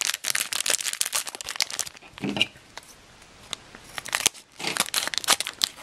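Crinkling of a plastic foil blind-bag pack as it is handled in the hands. The crinkling comes in two spells, with a quieter pause in the middle.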